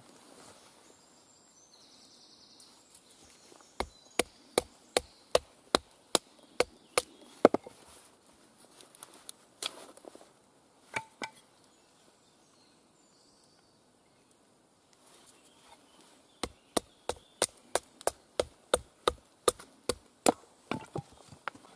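A wooden baton strikes the spine of a Mora 510 knife, driving its thin 2 mm blade down through short lengths of wet conifer wood to split them. The knocks are sharp, about three a second, and come in two runs with a pause of several seconds between.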